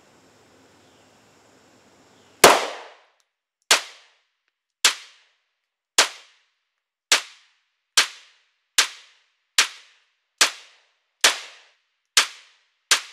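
Polymer 80 Glock 19 9mm pistol firing a string of twelve shots at about one a second, starting a couple of seconds in; each shot is a sharp crack that dies away quickly, and the first is the loudest.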